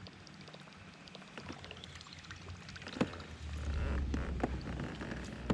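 Small clicks and knocks from a plastic pedal kayak and the gear in it as it moves on the water, with one sharper knock about three seconds in. A low rumble sets in about three and a half seconds in.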